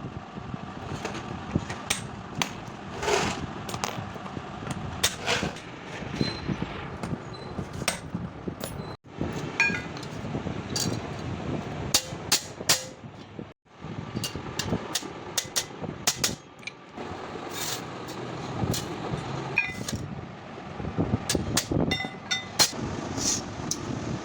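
Irregular metallic taps, clinks and knocks of hand tools on metal clutch parts, over a steady background din of traffic. The sound cuts out briefly twice, about nine and thirteen seconds in.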